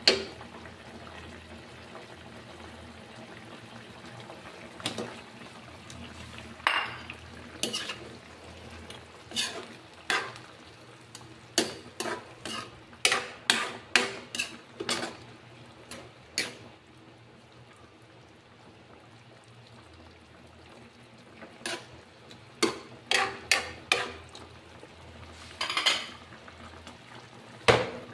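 Metal spatula clinking and scraping against a metal wok as raw chicken pieces are stirred into simmering liquid, in irregular strokes with a pause midway. A low, steady bubbling of the simmering liquid runs underneath.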